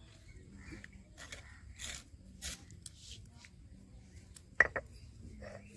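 Stone roller grinding ginger-garlic paste on a flat stone slab (sil-nora): a series of short gritty scraping and crunching strokes, with one sharp stone-on-stone knock about four and a half seconds in.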